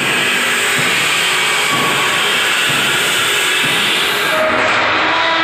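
Steel fence post roll-forming line running. Flat steel strip from the coil passes through the straightening and forming rollers, making a loud, steady hissing machine noise with a few faint whining tones.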